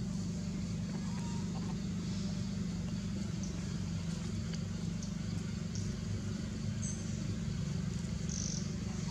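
A steady low mechanical hum, like an engine running, with a few faint ticks over it.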